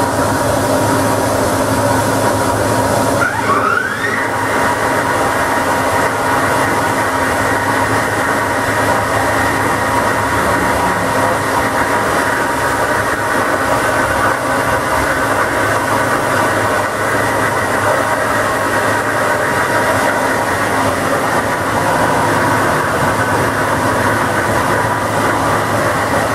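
Makino MC65 horizontal machining center running with its spindle brought up: a steady mechanical whine over a low hum, with a short rising whine about three and a half seconds in.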